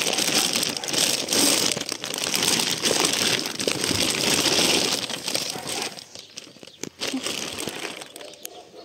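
Plastic grocery bags rustling and crinkling as they are handled, loud for about six seconds, then quieter rustles with a few light clicks and knocks.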